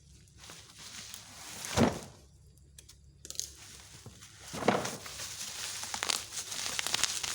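Packaging being handled and crinkling, with a loud rustle about two seconds in and another just before five seconds, then continuous crinkling to the end.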